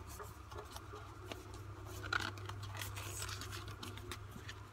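White cardboard phone-box insert being handled and turned over: light scraping, rubbing and tapping of cardboard, with a louder scrape about two seconds in, over a low steady hum.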